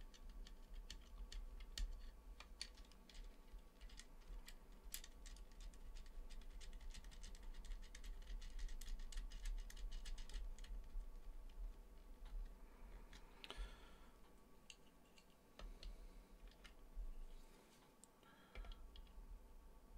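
Rapid small clicks and ticks of fingers handling a small SMA-to-IPX antenna connector cable and its metal and plastic parts, thinning out in the second half, with two short scraping rustles.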